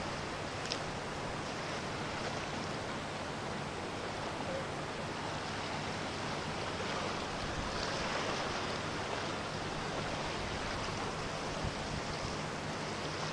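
Steady rushing wind noise, swelling slightly about eight seconds in.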